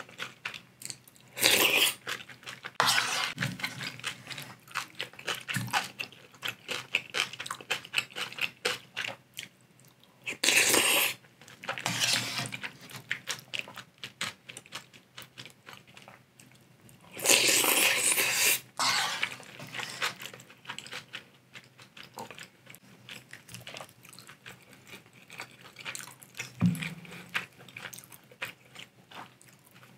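Close-miked eating of spicy instant ramen and kimchi: three long, loud noisy slurps, the longest well past halfway, with wet chewing and some crunching between them.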